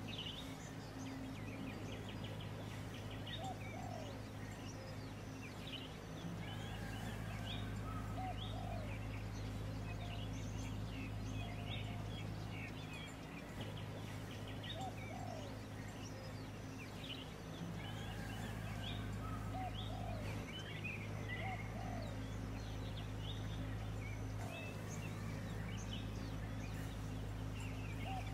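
Background birdsong: several small birds giving short chirps and quick sweeping calls throughout, over a steady low hum.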